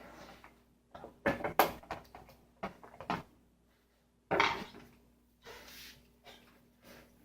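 Small metal hardware and tools clicking and knocking while a panel is fastened with screws and nuts. A run of sharp clicks comes about a second in, the loudest knock about four seconds in, and a softer rustle follows.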